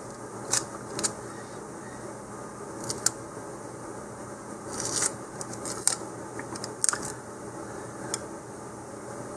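Adhesive tape being pulled from the roll, torn off and pressed around a model rocket's plastic nose cone shoulder: scattered short rips and crinkles, the longest about five seconds in, over a faint steady background hum.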